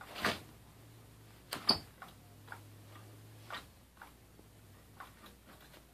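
Cat's Meow battery-powered cat toy's motor humming faintly under its nylon cover, stopping briefly about a second and a half in, with a string of irregular sharp clicks and taps, the loudest snap coming just before the hum stops.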